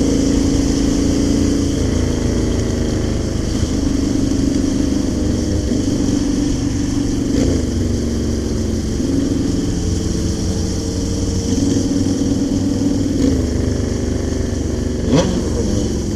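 Motorcycle engine running on the road, its pitch holding and then stepping up and down every second or two as the throttle and gears change, over steady wind hiss.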